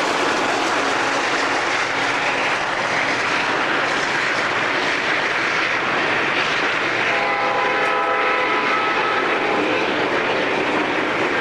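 Intermodal freight train's container wagons rolling past at speed: a steady, loud roar of wheels on rail. About seven seconds in, a steady tone of several notes holds for about two seconds.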